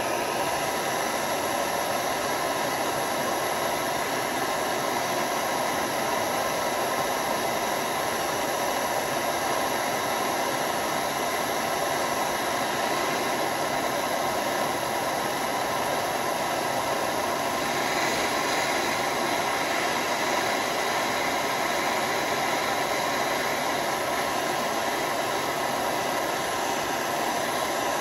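Blowtorch flame hissing steadily while it heats a brass piece to a red glow for annealing.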